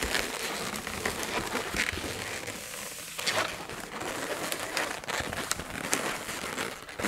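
Inflated latex twisting balloons rubbing and crinkling against each other as one balloon is pushed through the loop twists of another, with scattered small clicks.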